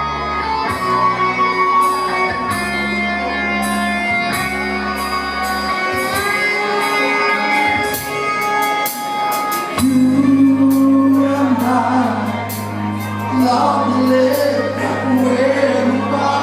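Live rock band playing loud in a hall: electric guitar, bass and drums with cymbal strikes, and a singer.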